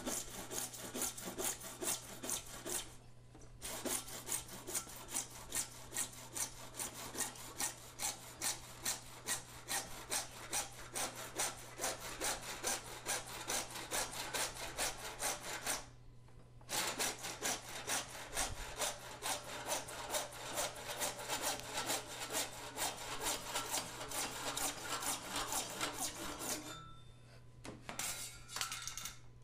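Hand PVC saw cutting through 3-inch PVC pipe: quick back-and-forth strokes, about two or three a second. The sawing breaks off briefly twice and stops a few seconds before the end.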